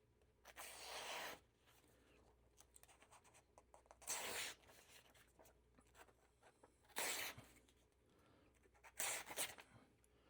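A knife edge dragging and tearing through paper in four short, scratchy strokes instead of slicing cleanly. This is the sign of an edge that feels sharp but cuts poorly, which the narrator puts down to a burr likely not fully removed after sharpening.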